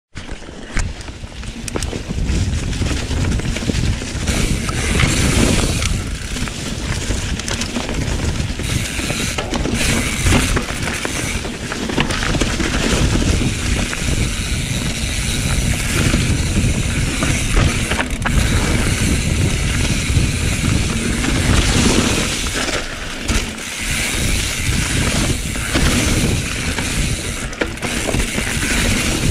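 Mountain bike riding down a leaf-covered dirt singletrack, heard from a camera on the rider's chest: tyres rolling over dry leaves and dirt, the bike rattling over bumps, the rear hub's freewheel ratchet ticking, and a steady rumble of wind on the microphone.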